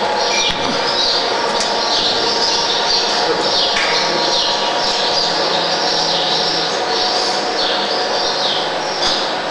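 DVBS-05.1 twin-shaft concrete mixer running empty: steady hum from its 14 kW electric drive and gearbox, with a high squeak repeating about twice a second as the shafts turn.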